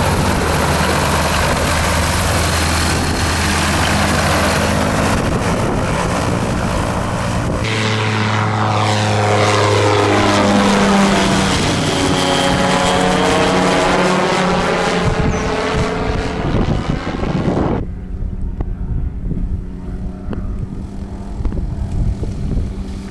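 Microlight trike's engine and propeller running as the aircraft passes close by, with the pitch sweeping like a flyby. The sound changes abruptly about eight seconds in. It drops suddenly to a quieter, duller hum about eighteen seconds in.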